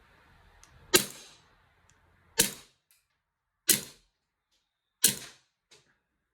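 Beretta M9A3 CO2 blowback BB pistol firing four shots, about one and a third seconds apart, each a sharp crack with a short tail. A fainter click follows near the end.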